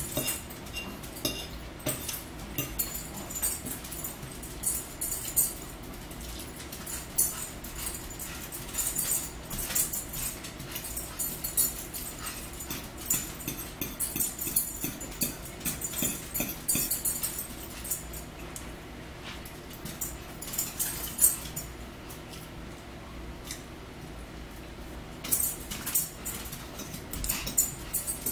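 Mukbang eating sounds: close-up chewing and wet mouth clicks on spaghetti and meatballs, with forks scraping and tapping on plates, in uneven runs of small clicks that ease off for a few seconds past the middle.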